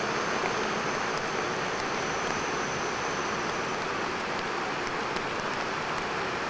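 Steady rushing noise of a small steam tank locomotive and its carriages coasting, the wheels rolling on the rails with no exhaust beats. A faint high whine fades out about halfway through.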